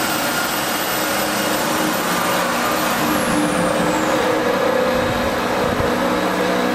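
Stone-working CNC router running: steady machine noise from the spindle and drives, with a high-pitched whine. About three seconds in, a high tone glides down.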